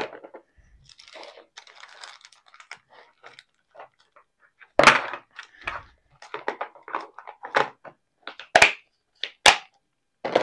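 Rustling of a foil pouch and a clear plastic clip-lid storage box being handled: a run of small plastic clicks and several sharp snaps, the loudest about five seconds in and others near the end, as the lid's latches click.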